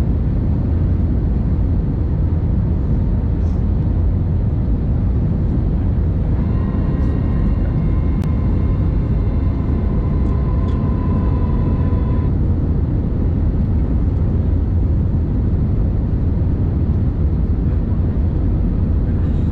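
Steady low rumble of cabin noise inside an Airbus A321neo in descent, the airflow and Pratt & Whitney geared-turbofan engine noise heard from a window seat over the wing. Midway a steady whine with overtones sounds for about six seconds, then cuts off.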